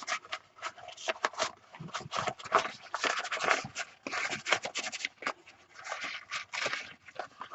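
Paper pages of a handmade journal rustling and scraping in short, irregular strokes as they are handled.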